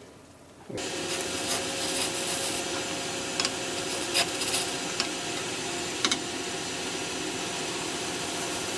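Wood lathe running with a gouge cutting into a spinning turnip, starting abruptly about a second in: a steady hum under a scraping hiss, with a few sharp ticks.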